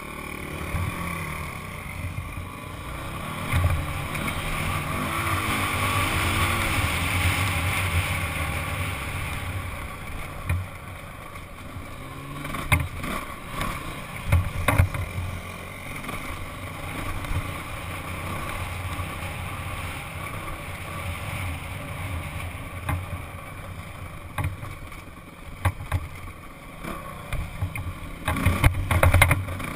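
Single-cylinder four-stroke Honda dirt bike engine running as the bike rides over bare rock, swelling for a few seconds near the start. Sharp knocks come through at times, with the loudest cluster near the end.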